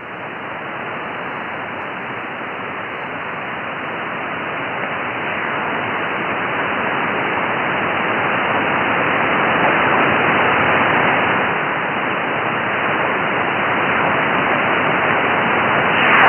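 Shortwave receiver hiss and static in upper-sideband mode while slowly tuning up through empty band, with no signal in the passband. The hiss is cut off sharply above about 3 kHz by the sideband filter and grows slowly louder.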